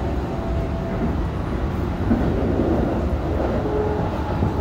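Steady low rumble and hum of a Keikyu 1000-series electric train standing at the platform.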